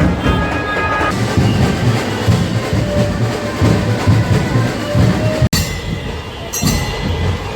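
Loud procession drumming with a dense, pounding beat, a held melody instrument playing over it for about the first second. About five and a half seconds in the sound cuts out for an instant, then the drumming carries on with a cymbal-like crash.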